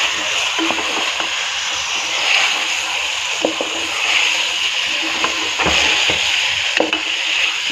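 Goat meat, browned onions and ginger-garlic paste sizzling in hot oil in a pot while a spoon stirs them, the sizzle swelling with each turn of the mixture. Occasional sharp clicks of the spoon against the pot. This is the bhuna stage, frying the masala with the meat.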